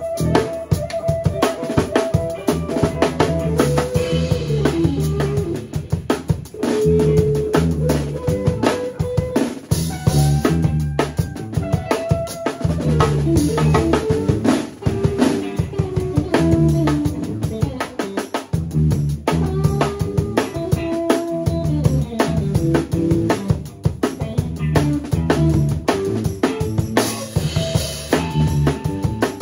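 Live improvised funk band playing: a busy drum-kit groove with kick, snare and rimshots over a pulsing electric bass line, with melodic lead lines weaving above.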